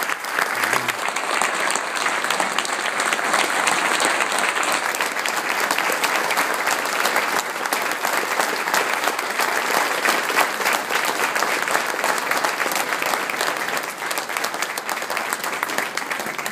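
A large audience applauding steadily, with a long run of dense clapping that eases slightly near the end.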